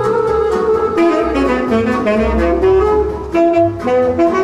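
Band music with a saxophone playing an ornamented melody over a rhythmic bass line.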